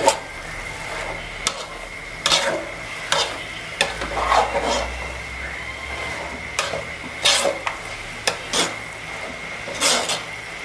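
Metal ladle stirring snails and greens in an aluminium pot, in irregular scrapes and clinks against the pot's sides over a light sizzle. A faint steady high tone runs underneath.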